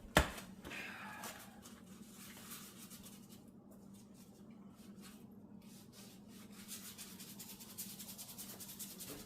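A sharp knock just after the start, then faint rubbing and scraping handling noises over a low steady hum.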